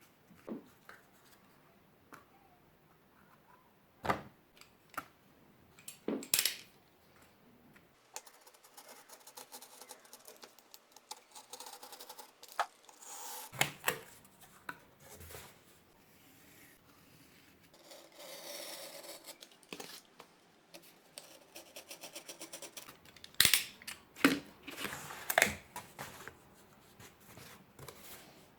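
Cardboard being cut and handled at a worktable: a string of sharp snips and snaps, stretches of scraping, and light taps of pieces being set down.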